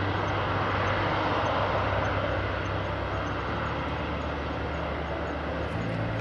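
Jet airliner engine noise: a steady, even rush with a low hum beneath it, easing off slightly over the few seconds.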